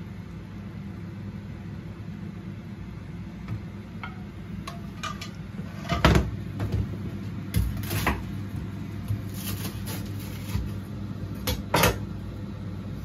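Cooked mussel and cockle shells clattering as they are tipped from a frying pan into a ceramic dish, with a few sharp knocks of pan and crockery, the loudest about six seconds in and near the end, over a steady low hum.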